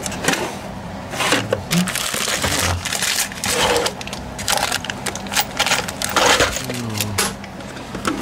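Irregular scraping, clicks and knocks of metal being worked in a lathe workshop, over a steady low hum.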